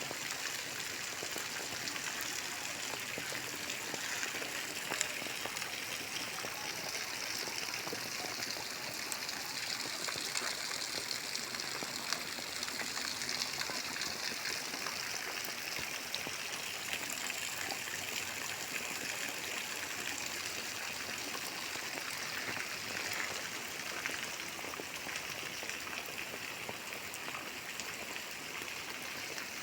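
Steady rain falling, an even hiss with many fine patters of drops.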